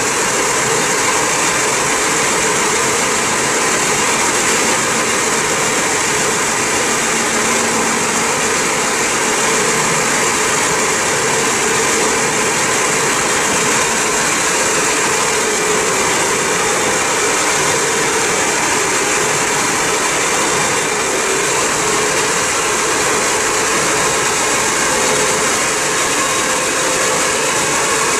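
Ford Focus ST idling steadily on a chassis dyno under a loud, even rushing noise, with no revs or power run.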